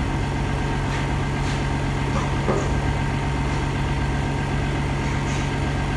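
Steady low machine hum, with a few faint light clinks.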